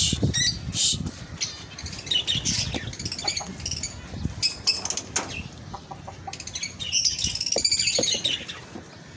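Caged birds flapping their wings, with bursts of quick high chirping about two seconds in and again about seven seconds in.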